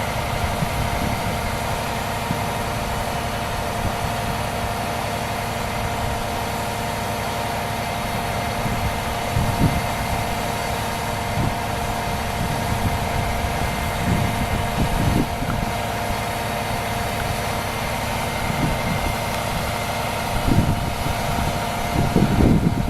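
An engine idling steadily with a constant whine above the engine note, and a few brief low surges.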